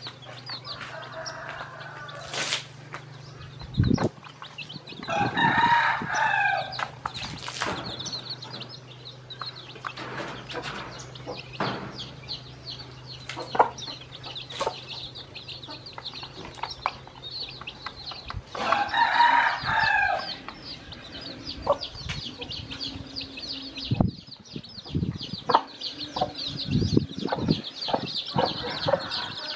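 Newly hatched chicks peeping in a constant stream of high chirps, with two longer, louder chicken calls about five and nineteen seconds in. Scattered sharp clicks run through it.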